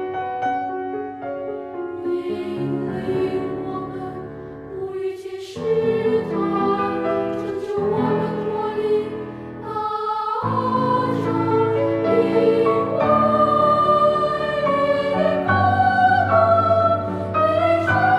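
Children's and youth choir singing a Chinese Christian song with piano accompaniment.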